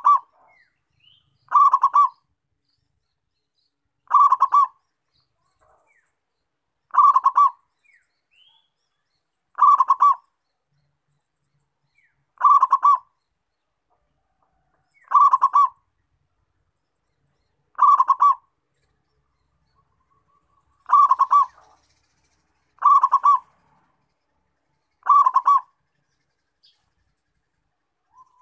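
Zebra dove (perkutut) cooing: about eleven short rolling coo phrases, each a quick run of stuttering notes, repeating every two to three seconds.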